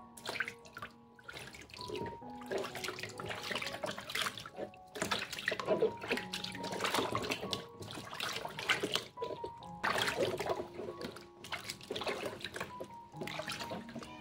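Water splashing and sloshing in a plastic tub as hands scoop it over a kitten being bathed, coming in irregular bursts, over soft background music with held notes.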